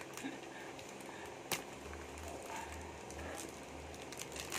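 Plastic shrink-wrap being peeled and pulled off a cardboard box: faint crinkling with a sharp click about a second and a half in. A low pulsing hum sits underneath from about two seconds in.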